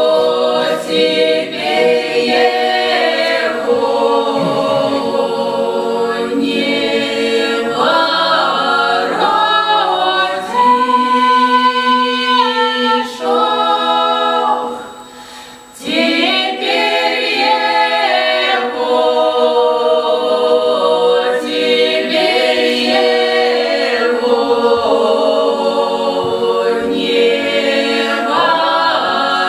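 A folk choir singing a cappella in Voronezh village style: several voices holding long, bending lines in harmony, with a brief breath pause about halfway through.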